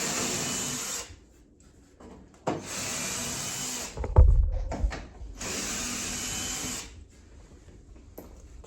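Power drill/driver with a hex driver bit running in three short bursts of about a second and a half each, loosening cabinet screws on a PTAC unit. A heavy thump comes between the second and third bursts.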